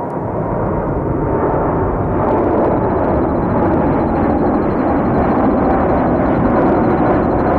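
Jet airliner's engines close by, a loud, steady rush of jet noise that grows slightly louder, with faint engine whines over it, a high one coming in about three seconds in.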